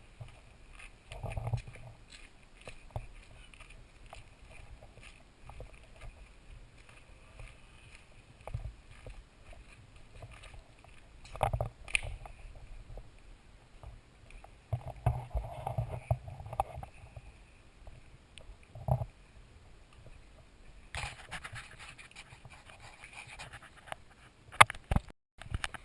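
Scattered knocks and low bumps at irregular times, like objects being handled and set down, over a faint steady background noise.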